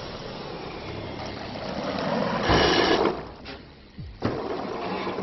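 Mechanical whirring of clockwork gears. It swells into a louder rush about two and a half seconds in, fades, and is followed by a sharp click a little after four seconds.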